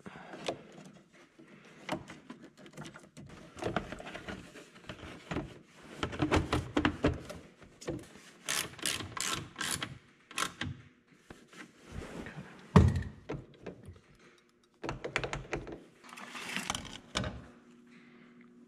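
Hands working wiring and a plastic console cover on a track loader: rustling, clicking and small knocks, with one heavy thunk about 13 seconds in.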